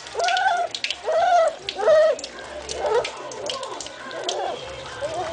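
A young puppy whimpering in a bath, giving several short rise-and-fall whines, clearest in the first two seconds and weaker and wavering after. Light splashing clicks of bath water run under the whines.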